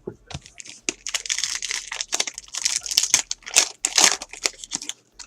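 Foil trading-card pack wrapper being torn open and crinkled by hand, an irregular papery crackling and rustling that starts about a second in.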